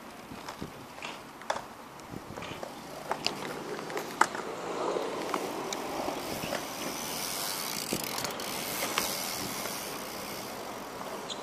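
Irregular clicks and scrapes of aggressive inline skates' wheels and frames on a concrete ledge with metal coping, with a rushing noise swelling in the middle.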